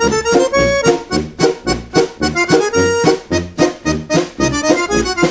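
Instrumental break in a 1960 Finnish schlager (iskelmä) recording: accordion playing the melody over a steady beat.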